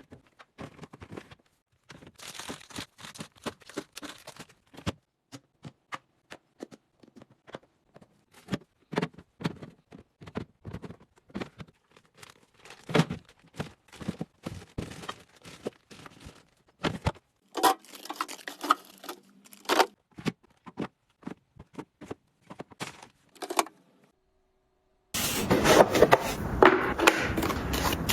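Close-up handling of household items: scattered taps, knocks and plastic crinkling. About 25 seconds in, after a brief pause, a denser and louder run of clatter starts.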